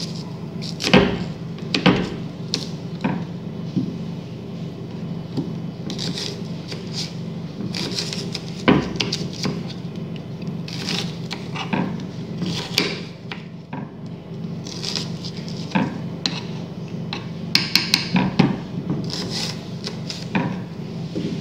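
Knife cutting an onion on a wooden cutting board: irregular knocks of the blade against the board with softer slicing and scraping between them. A few harder knocks near the start and a quick cluster of clicks a little before the end.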